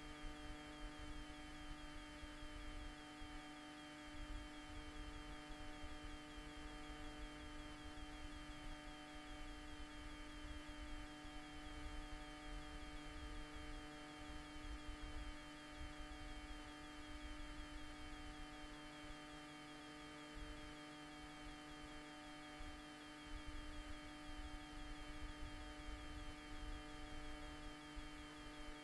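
Faint steady electrical hum made of several fixed tones with a fine buzzy edge, over a low uneven rumble. It is the noise of the audio feed itself rather than any clear sound from the docks.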